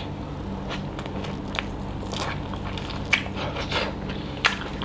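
A person chewing a mouthful of pork curry and rice close to the microphone: wet mouth smacks and crunches, with a few sharp clicks about one and a half seconds apart, over a steady low hum.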